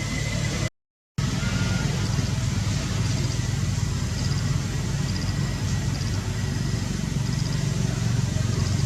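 Steady low rumbling noise that cuts out to silence for about half a second, about a second in, with a few faint high chirps over it.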